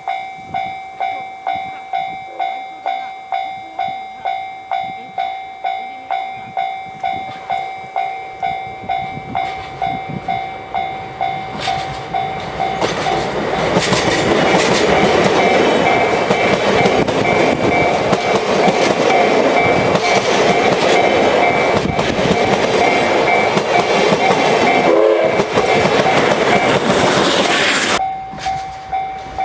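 A level crossing warning bell rings at about two strokes a second. About twelve seconds in, a train hauled by a DE10 diesel locomotive passes close by: a loud rumble of the engine and the clatter of wheels on the rails, with the bell still ringing underneath. The train noise drops away near the end, leaving the bell ringing on its own.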